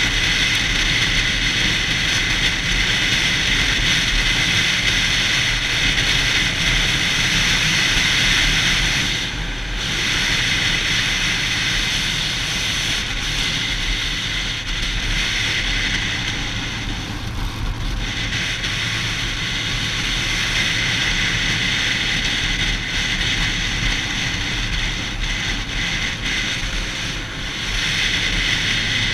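Yamaha YZF-R6 inline-four motorcycle engine running steadily under way, with a few brief dips in level.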